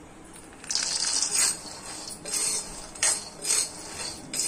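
Raw peanuts poured into a dry iron kadai, a rattling rush about a second in, then stirred with a steel spoon: several short scrapes and rattles of the nuts against the pan as they dry-roast.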